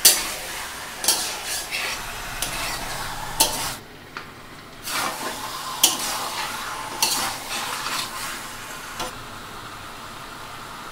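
Duck meat frying and sizzling in a kadai while a spatula stirs it, scraping and knocking against the pan in a series of sharp strokes, with a brief pause about four seconds in and the stirring stopping near the end. The duck's fat is melting out into the oil.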